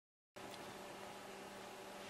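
Dead digital silence that gives way about a third of a second in to faint, steady room tone: a low hiss with a faint hum.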